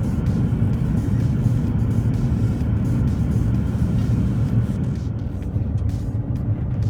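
BMW X6 xDrive40d's 3.0-litre twin-turbo straight-six diesel, tuned, driving along: a steady low rumble of engine and road noise.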